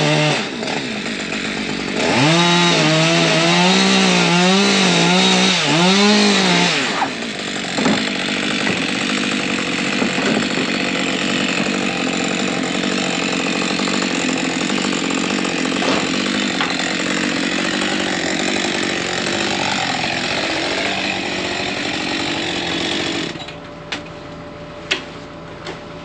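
Chainsaw revving up and down several times, then held at high speed for about fifteen seconds while sawing into wood. It cuts off a few seconds before the end, followed by a few sharp knocks.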